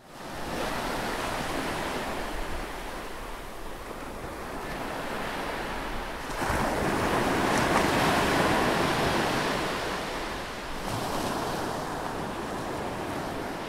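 Ocean surf sound effect: a steady rushing wash of waves that swells to its loudest about six and a half seconds in, then eases back.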